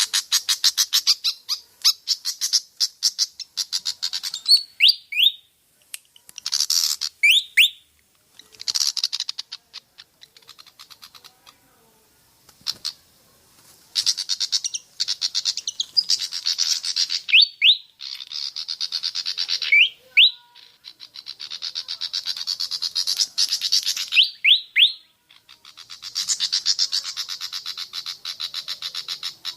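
Malaysian pied fantail calling: bursts of very rapid, harsh chattering notes, broken several times by a pair of quick upward-sliding whistles. In the middle there is a short, quieter stretch with only scattered notes.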